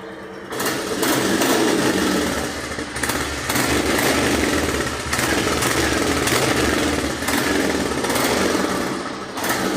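A stock 2024 Royal Enfield Bullet 350's single-cylinder engine being revved in neutral through its stock exhaust, the throttle opened and eased off several times. Thumpy, with the Bullet's signature 'dug dug' beat.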